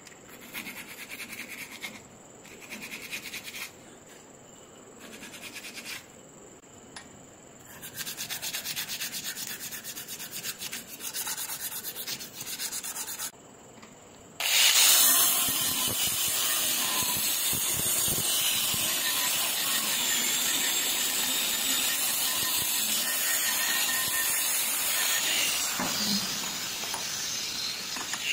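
Hand sanding of a metal part with abrasive: three separate rubbing strokes, then faster steady scrubbing. About halfway through, a much louder steady rushing noise sets in and holds.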